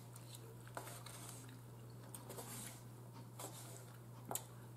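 Faint eating sounds: quiet chewing and a metal fork clicking against a plate, with the sharpest click near the end. A steady low hum runs underneath.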